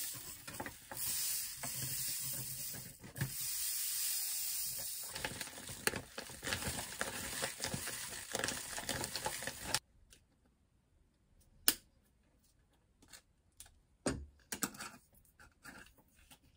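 Plastic bag crinkling and red pepper powder pouring through a paper funnel into a glass spice jar: a steady rustling hiss that cuts off suddenly about ten seconds in. Then a few light clicks and taps of glass jars and a metal lid being screwed on.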